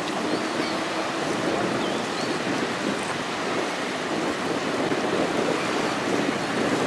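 Steady rushing and splashing of water from a passing general cargo ship's bow wave and hull wash, with wind buffeting the microphone.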